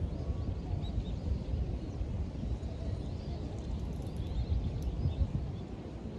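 City park ambience: a steady low outdoor rumble with faint bird chirps.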